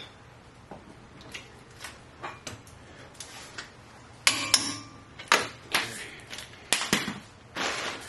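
Click-type torque wrench ratcheting with faint ticks on a front brake caliper bolt as it is brought to 160 foot-pounds. From about four seconds in come a run of louder metallic clicks and clanks, ending in a short scrape as the wrench is laid down.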